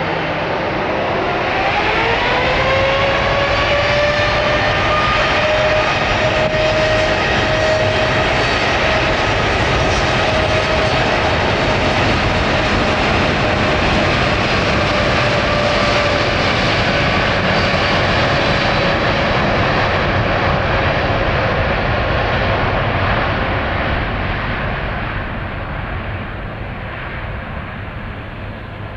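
Boeing 787-8 jet engines (GE GEnx-1B) spooling up with a rising whine, then running loud and steady at high thrust over a deep roar, typical of a takeoff run. The sound fades over the last few seconds as the airliner moves away.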